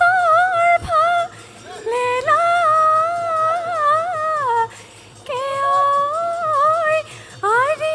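A woman sings a Bihu song unaccompanied, in a high, ornamented voice with wavering, melismatic turns. It comes as four long phrases with short breaths between them, the last rising in pitch near the end, and is amplified through a stage microphone.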